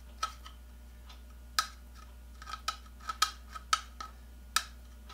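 Light clicks and taps of a hard plastic drill housing being handled and fitted against the motor and wiring, about ten irregular knocks, some ringing briefly. A steady low hum runs underneath.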